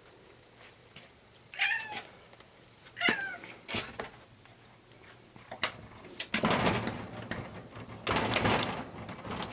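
A cat meows twice, each call rising and falling in pitch; then a few clicks and a wooden sliding door dragged open in two scraping pushes, the second a little after the first.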